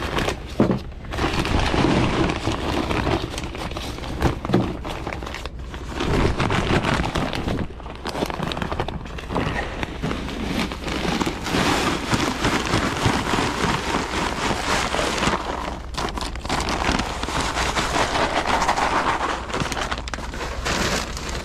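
Strong wind buffeting the microphone: a gusty rumble that swells and dips, with a rough, crackling hiss over it.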